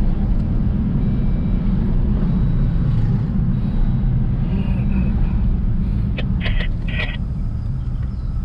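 Steady low rumble of road and engine noise heard from inside a moving car's cabin, with a few short clicks about six to seven seconds in.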